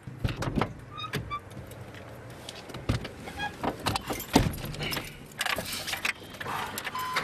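Car keys jangling and clicking as someone settles into a car's driver's seat, with several sharp knocks, the loudest about four seconds in. A steady high tone starts just before the end.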